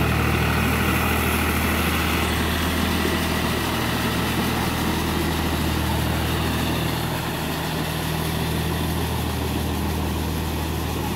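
John Deere 5045D tractor's three-cylinder diesel engine running steadily as it drives a Shaktiman rotavator through mud, puddling a flooded paddy field. It gets a little fainter about seven seconds in.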